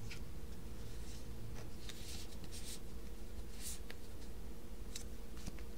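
Trading card being handled and slid into a plastic binder page pocket: a handful of short, scratchy rustles of card against plastic, over a faint steady hum.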